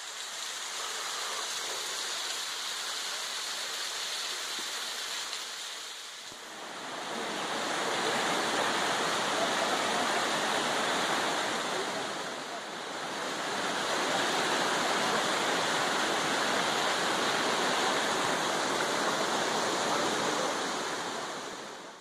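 Steady rush of falling water from a waterfall, dipping briefly twice.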